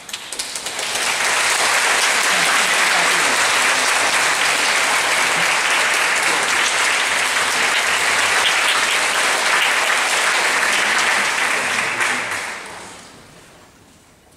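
Audience applause, building within the first second, holding steady, then dying away about twelve seconds in.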